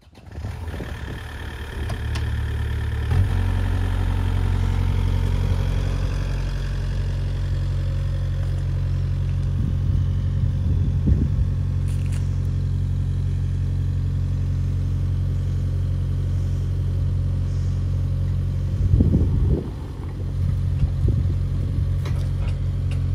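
A combustion engine running steadily at constant speed, picking up in speed and level about three seconds in, with a few knocks near the end.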